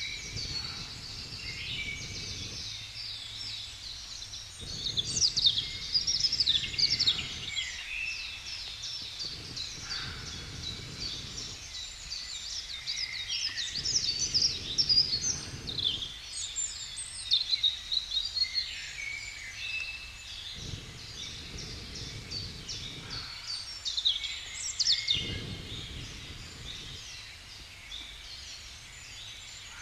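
Several woodland birds singing at once, with many overlapping chirps and quick trills. An intermittent low rumble comes and goes under the song every few seconds.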